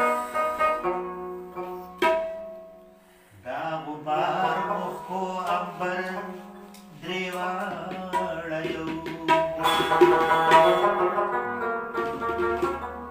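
Afghan rubab playing a qawwali melody with tabla accompaniment. The plucked notes ring on over a steady low drone. The music dies away briefly about three seconds in, then comes back in fuller.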